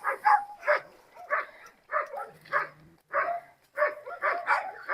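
Dogs barking, a quick run of short barks, several each second.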